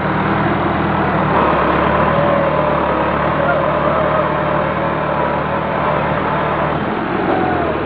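Massey Ferguson 375 tractor's four-cylinder diesel engine running steadily under heavy load as it strains to move a trolley full of sugarcane out of soft ground; the low engine sound eases near the end.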